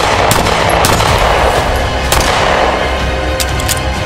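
Several shots from a SIG M18 9 mm pistol fired in quick succession, some in close pairs, over background music.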